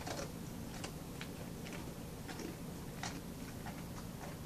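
Airedale Terrier crunching a hard bone-shaped dog biscuit: faint, irregular crunches, two or three a second.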